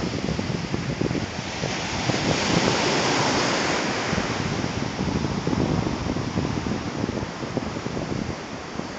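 Surf washing on a sandy beach, with wind buffeting the phone's microphone; a wave swells up and fades about two to four seconds in.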